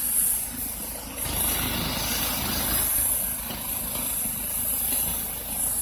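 Engines idling steadily: a low, evenly pulsing rumble with a constant high hiss over it.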